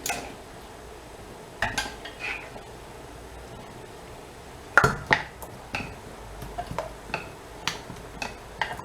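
Cookware and a utensil clinking and knocking against a cooking pot as potato pieces are added: a few sharp knocks about two seconds in and again about five seconds in, then a run of lighter clicks.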